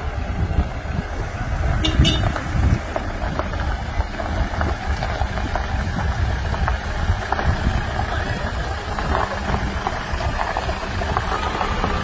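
Engines of a flatbed truck and a pickup towing a trailer running at low speed, a steady low rumble, with voices faint behind it.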